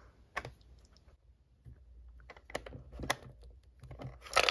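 Plastic clicking of a toy vending machine's push-button compartment being pressed by a finger: scattered small clicks, then a louder plastic clatter near the end.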